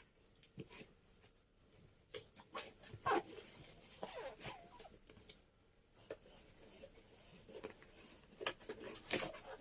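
Packaging being handled as a box is unpacked: scattered clicks, crinkles and rustles of cardboard and plastic.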